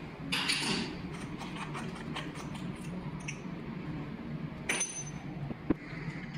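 Small metal clicks and clinks as tools and valve parts are handled. There is a short scrape just after the start and a ringing metallic clink about three-quarters of the way through, followed by a sharp click, all over a steady low hum.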